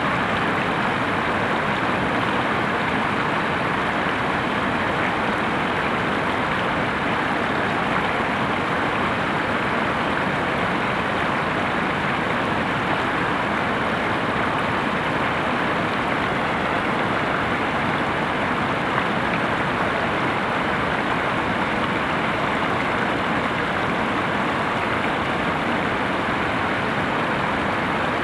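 Venta Rapid, the wide, low waterfall on the Venta river, rushing steadily with the unbroken noise of falling water.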